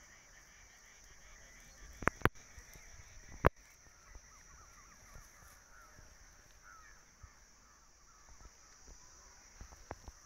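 Birds calling in the background, short faint chirps over a steady high hiss. A few sharp knocks stand out about two seconds in and again at three and a half seconds.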